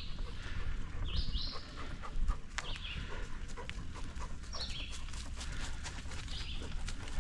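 A short, high two-note chirp repeating four times, about every second and a half to two seconds, over a steady low rumble and scattered light clicks.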